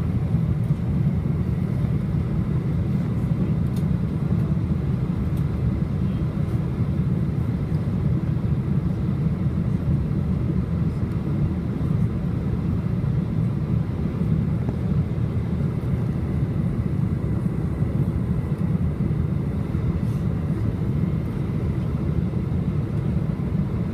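Steady low roar of an airliner's engines and airflow heard inside the passenger cabin during the approach to land.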